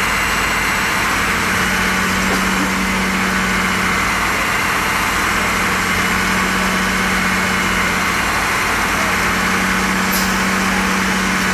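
Fire engine running steadily, its engine driving the pump that feeds the hoses, with a low drone that comes and goes.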